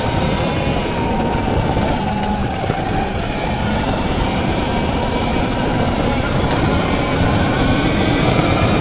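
79bike Falcon Pro electric dirt bike riding fast on a dirt trail: wind rushing over the microphone and tyres on dirt make a steady noise, with a faint steady whine from the electric motor.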